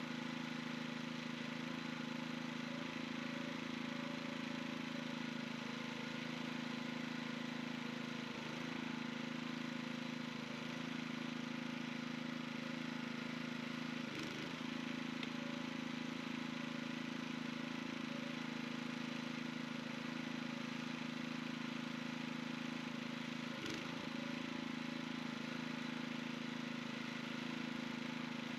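Small engine of a dynamic cone penetrometer rig's hydraulic power unit running steadily at a constant speed while the hydraulic puller draws a test rod out of the ground. Two faint knocks, one about halfway through and one some ten seconds later.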